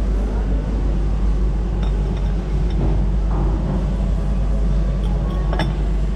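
Steady low mechanical hum. A porcelain cup clinks once against its saucer about five and a half seconds in.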